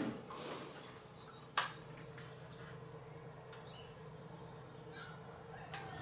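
Handling of a 3D-printed plastic fan bracket: one sharp click about one and a half seconds in, with light small ticks and scrapes over a faint steady hum.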